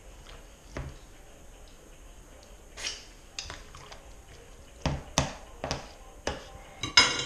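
A fork stirring a wet, creamy fish mixture in a plastic bowl: scattered clicks and knocks of the fork against the bowl, coming more often in the second half, with the loudest clatter near the end.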